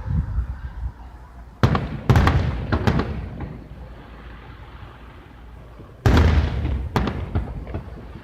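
Aerial fireworks shells bursting: a quick run of sharp bangs about two seconds in, then a louder boom about six seconds in and a smaller bang just after. Each is followed by a low rumble that dies away.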